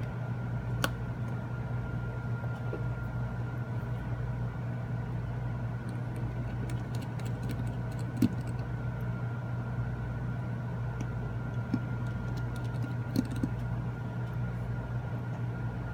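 Steady low hum with a faint high whine, broken by a few small sharp clicks and taps as small phone parts and tools are handled on a workbench.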